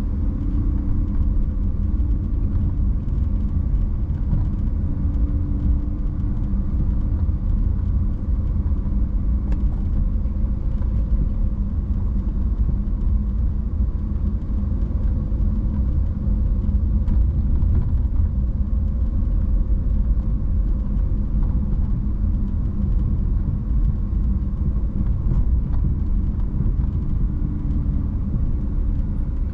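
Steady low rumble of a car driving: engine and tyre noise, with a faint steady hum and no sudden events.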